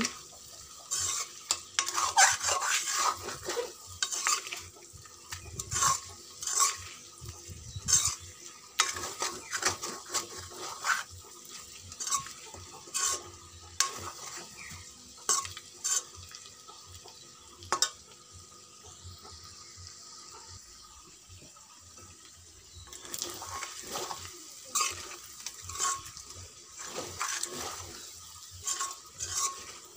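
A metal spoon scraping and clinking against a metal wok as pork pieces are stirred and fried in masala, with sizzling underneath. The stirring stops for a few seconds about two-thirds through, leaving the sizzle alone, then starts again.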